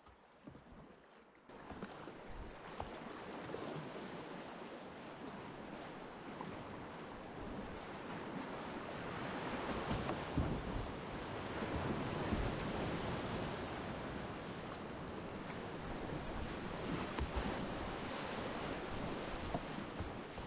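Rushing whitewater of a river rapid churning around a kayak as it runs down through the rapid. It starts about a second and a half in and builds to its loudest about halfway through.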